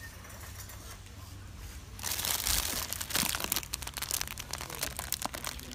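Plastic packaging crinkling and crackling as a hand grabs and handles a bagged pack of crêpes. It starts about two seconds in with many sharp crackles, over a low steady hum.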